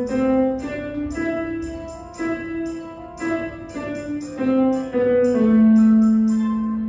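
Digital piano playing a simple melody over chords, ending on a long held note that slowly fades, with a light ticking beat alongside.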